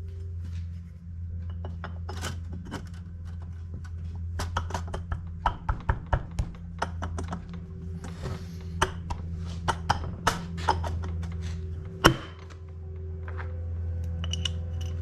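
Small metal clicks, clinks and taps of hand tools and fasteners as a Yamaha RZ350 cylinder head is fitted, with one sharp, louder knock about twelve seconds in, over a steady low hum.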